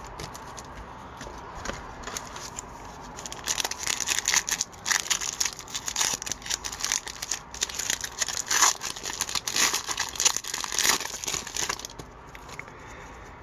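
Foil trading-card pack wrapper crinkling and tearing as it is ripped open by hand. The crackling starts a few seconds in and stops shortly before the end.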